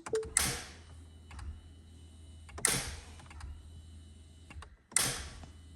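A 2007 Mini Cooper R56 failing to crank when a start is tried: three sharp clicks about two and a half seconds apart, with a low steady electrical hum and a faint high whine between the first and the last, and no starter or engine sound. The starter relay in the CAS module is dead, its flyback diode burnt out after the engine ground failed.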